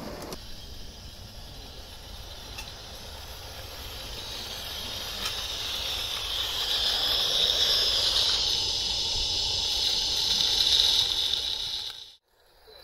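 Steam hissing from a 16 mm scale live-steam garden-railway locomotive, a steady high hiss that grows louder over several seconds and cuts off suddenly near the end.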